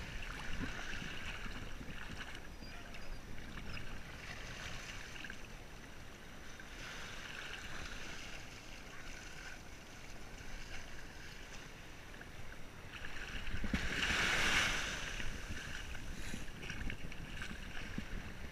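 Shallow sea water lapping and washing around a camera at the waterline, with a louder rush of water lasting about two seconds roughly three-quarters of the way through.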